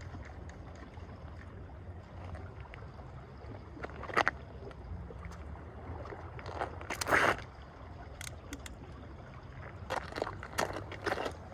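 Steady wash of the sea against a rocky shore, broken by sharp knocks and scrapes as beachcasting rods on a tripod rest are handled, loudest about seven seconds in, and a run of footsteps on the rock near the end.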